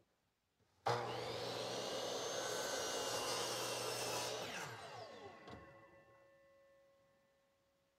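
DeWalt compound miter saw switched on with a sudden start, running at full speed while the blade is brought down through a wooden workpiece, then spinning down after the trigger is released: the motor's pitch falls and the blade rings fainter until it stops.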